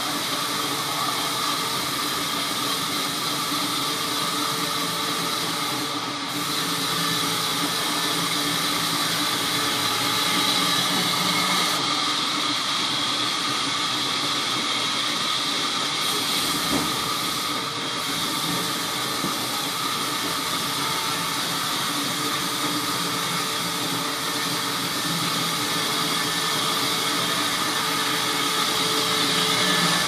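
A large vertical band saw running steadily and cutting through a thick slab of rain tree timber, a continuous hiss with steady tones.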